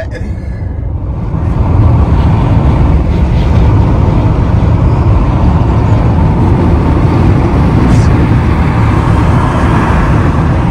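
Steady rumble of road and wind noise from a car on the move, building over the first couple of seconds and then holding level.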